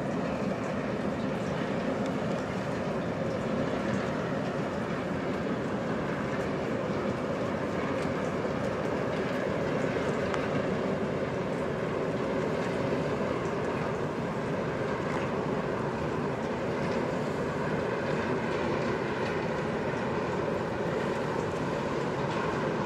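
Steady mechanical drone of a large offshore vessel's engines and thrusters as the ship moves slowly past at close range.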